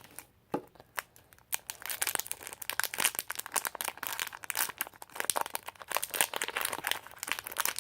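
Plastic toy blind bag crinkling and tearing as it is opened by hand, a dense run of crackles starting about a second in.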